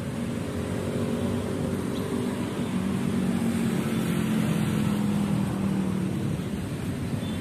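Steady road traffic noise with the hum of engines, one of them growing louder through the middle as it passes.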